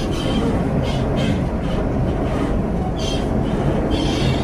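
Commuter train in motion heard from inside the carriage: a steady low rumble of wheels and running gear, with irregular hissing over it.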